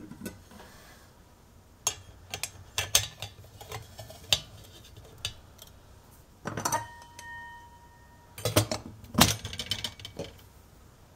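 Stainless steel percolator parts clinking and knocking together as the pot is assembled, with a short metallic ring about halfway through. The loudest clatter comes near the end as the domed lid with its glass knob goes on.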